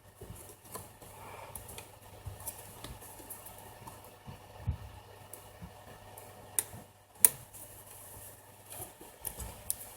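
Faint clicks and light taps of small plastic and metal phone parts being handled as a smartphone's lower circuit board is fitted into its frame, with two sharper clicks about six and a half and seven seconds in.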